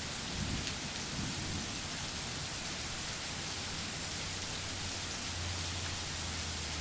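Steady rain hissing, with low thunder rumbling underneath that swells about half a second in and again near the end.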